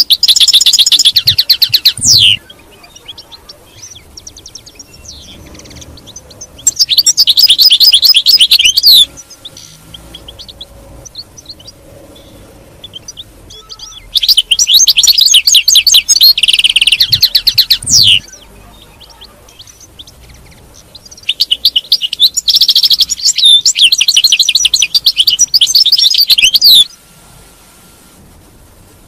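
European goldfinch singing: four bursts of fast, high twittering song, the later ones longest, with short quiet pauses between them.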